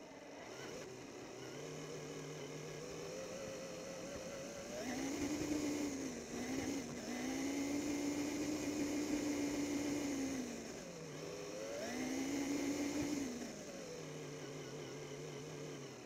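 Remote-control truck's drive motor and gears whining, the pitch rising as it speeds up about five seconds in, holding steady, dropping, then rising again briefly before falling back to a lower whine.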